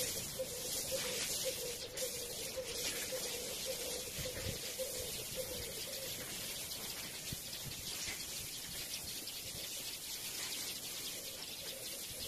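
Steady hiss of water running from a garden hose as potted plants are watered, with birds calling in the background.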